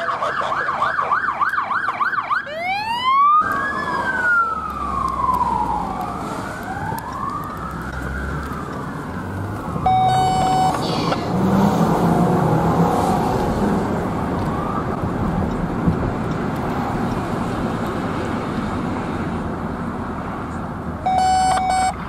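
Police car electronic sirens: a fast yelp siren, then a slower wail rising and falling. Short steady air-horn blasts come about ten seconds in and again near the end, over steady traffic noise.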